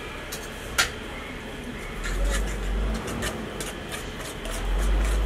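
Kitchen clatter: a utensil clicking and scraping against a hammered aluminium pot as noodles are tossed and mixed, with one sharp clink about a second in. Two low rumbles come in partway through.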